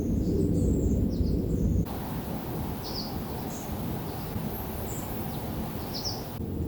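Outdoor ambience with small birds chirping: short high chirps over a low rumble at first, then after an abrupt change about two seconds in, an even hiss with a handful of scattered chirps.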